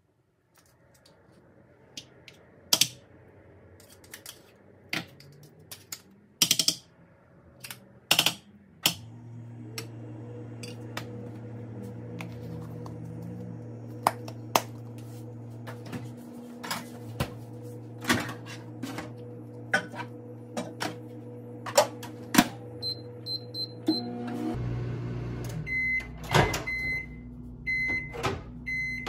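A metal spoon clinking and scraping against small ceramic bowls and a cat-food can as wet cat food is portioned out, in a series of sharp taps. From about nine seconds in, a microwave oven hums steadily behind the taps, and a few electronic beeps sound near the end.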